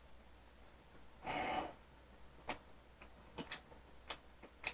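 Quiet chewing of a mouthful of hamburger: a short breathy sound a little over a second in, then soft, irregular wet mouth clicks.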